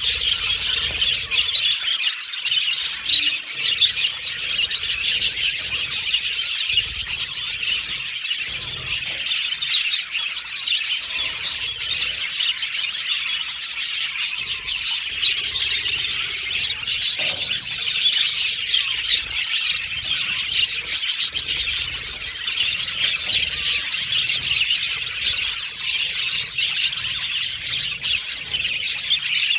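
A flock of budgerigars chattering continuously: a dense, overlapping mix of warbles, chirps and squawks.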